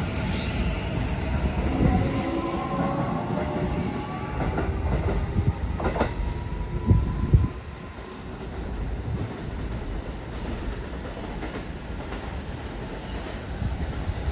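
Sanyo Electric Railway 6000 series electric train accelerating away from the platform: its IGBT-VVVF inverter whine rises in pitch as the cars pass. A few loud wheel clacks over the rail joints come about six to seven seconds in, then the sound falls to a quieter rumble as the train pulls away.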